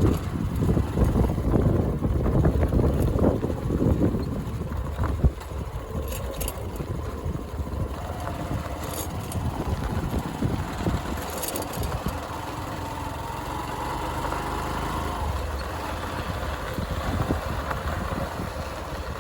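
Motorcycle running during an off-road ride: a steady low rumble of engine and road noise, heavier for the first few seconds, with a faint engine hum above it later on.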